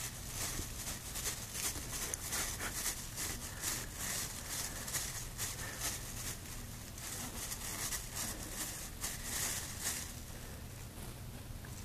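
A cat licking a thin plastic grocery bag: repeated short crinkling strokes of tongue on plastic, about two or three a second, irregular.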